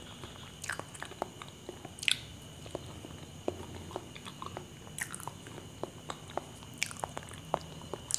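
Close-up chewing of soft, ripe small bananas: wet mouth clicks and smacks, with a few sharper, louder clicks, the loudest about two seconds in.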